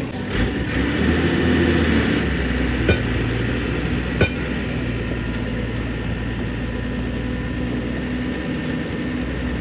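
Two sharp metallic strikes about a second and a half apart, like a hammer hitting steel, over a steady low mechanical hum.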